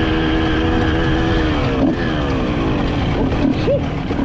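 Two-stroke engine running at high revs, its pitch sliding down about two seconds in as it eases off, over rough wind and ground noise.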